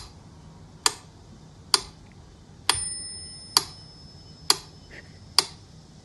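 Sharp clicks at an even pace, a little under one a second. One of them, a little before the midpoint, rings on like a small bell before fading.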